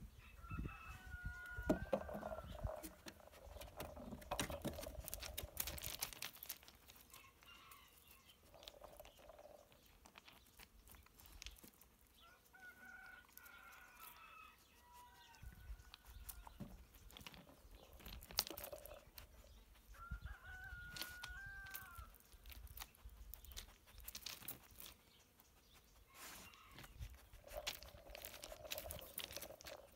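A rooster crowing three times, faint, each crow a second or two long. In between, short clicks and clatters of gravel stones as a Labrador noses and paws through a gravel bed searching for treats.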